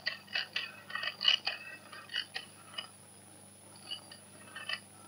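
Rotary telephone dial being turned and spinning back: a quick run of clicks for about three seconds, then a few more clicks after a short pause near the end.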